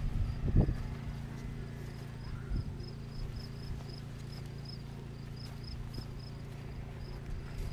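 A cricket chirping steadily, about two to three short high chirps a second, over a low steady rumble. A single thump, the loudest sound, comes just after the start.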